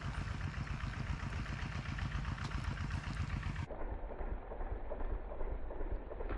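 A small engine running steadily. About two-thirds of the way through, the sound turns duller and loses its top.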